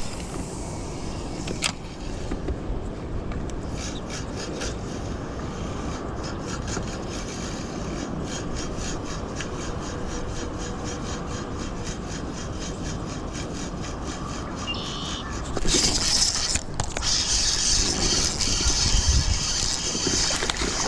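Baitcasting reel being cranked steadily, a rubbing, scraping noise with fine rapid ticking. About fifteen seconds in, a louder hiss takes over.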